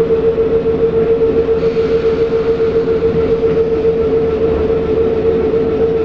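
Class 455 electric multiple unit standing still, heard from inside the carriage: a steady whine at one constant pitch over a low hum and hiss, with no wheel or track noise.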